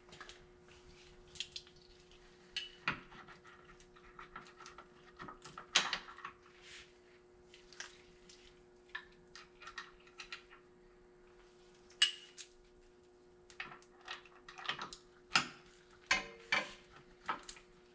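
Scattered metal clinks and knocks as hydraulic top-and-tilt cylinders and their fittings are handled and fitted on a tractor's three-point hitch, over a steady hum.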